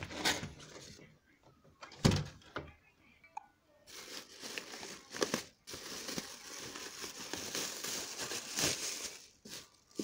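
Clear plastic bag wrapped around a small box fan crinkling and rustling as it is handled, with a single thump about two seconds in and steady crinkling through the second half.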